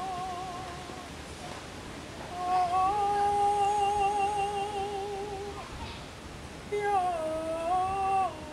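A single voice humming a slow wordless melody in long held notes with a wavering vibrato. It pauses twice between phrases.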